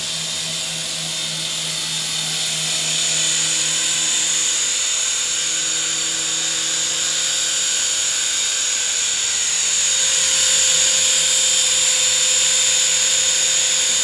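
Syma S111G micro RC helicopter in flight: its small electric motors and coaxial rotors whine steadily at a high pitch, getting a little louder about two-thirds of the way through.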